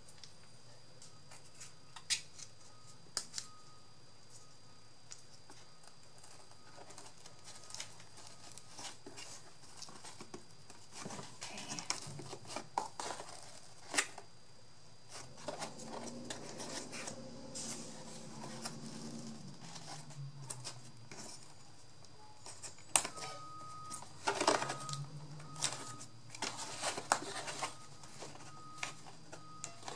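Hands working craft materials: scattered sharp clicks, snips and rustles of paper and card, sparse at first and getting busier in the second half.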